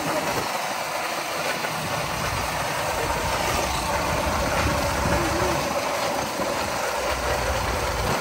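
Braked bicycle rear tyres dragging and skidding on asphalt as the bikes are towed behind a car, a steady scraping hiss, with the towing car's engine running underneath and its low rumble growing from a few seconds in.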